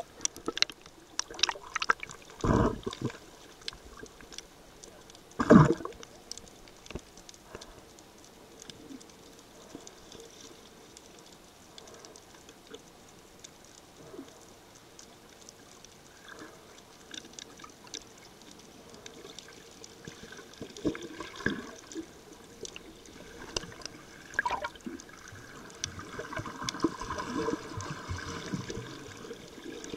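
Underwater sound picked up by a camera in a waterproof housing while snorkeling: muffled water movement and bubbling with scattered clicks, two louder thumps a few seconds in, and denser bubbling near the end.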